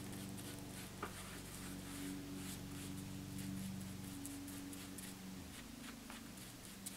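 Foam brush spreading wet Mod Podge in long top-to-bottom strokes over a hardback book cover: faint, repeated soft scratchy strokes, over a steady low hum.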